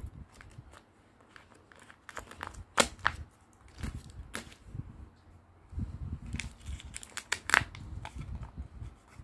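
Tape-laminated paper crinkling and crackling as paper-doll pieces are handled and peeled apart, with a few sharp clicks standing out.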